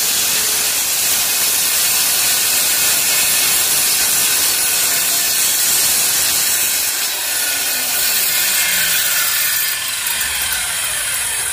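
Handheld electric circular saw running and cutting along the edge of a wooden window sash, a steady loud whine mixed with the rasp of the blade through the wood. It drops slightly in level near the end.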